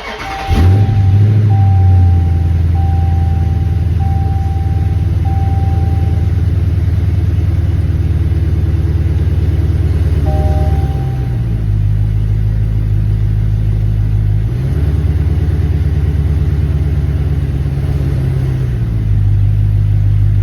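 2020 Dodge Challenger Scat Pack's 6.4-litre HEMI V8 starting about half a second in and then idling steadily, its note dipping and recovering a few times as the new automatic shifter is moved through the gears. A dashboard chime repeats about once a second for the first few seconds, and a two-note chime sounds about halfway through.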